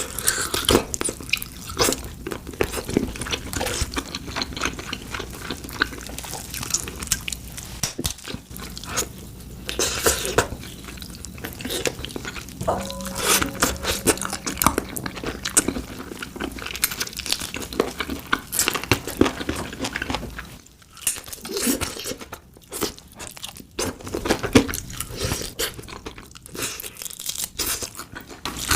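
Close-miked eating of fried chicken: crisp crust crunching in repeated bites, with chewing in between.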